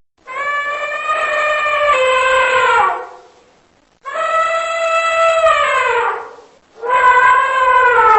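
Elephant trumpeting: three long, brassy calls, each about two to three seconds, holding a steady pitch and then dropping away at the end, with short gaps between them.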